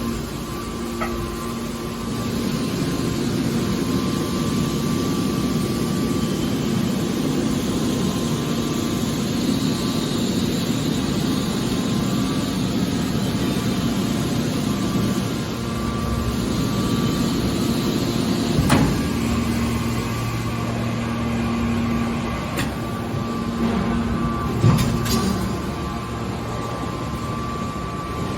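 Metal press baler running with a steady machine hum, and two sharp knocks, about two-thirds of the way in and again some six seconds later.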